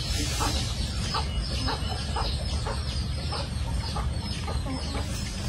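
Chickens clucking, short repeated calls a few times a second, over a low steady rumble.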